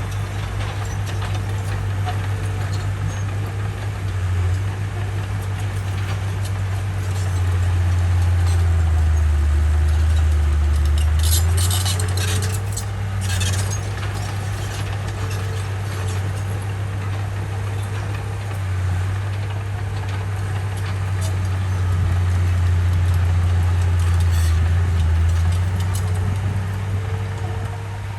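Komatsu bulldozer's diesel engine running with a steady low drone, swelling louder twice as it works under load pushing topsoil. About twelve seconds in, a short cluster of sharp metallic clicks rises over the engine.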